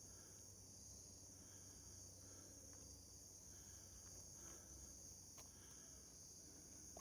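Near silence, with a faint, steady high-pitched insect chorus, cricket-like, and one faint click about five seconds in.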